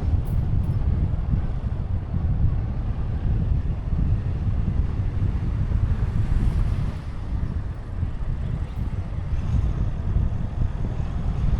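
Kia Sportage on the move: a steady low rumble of road and wind noise, easing slightly about two-thirds of the way through.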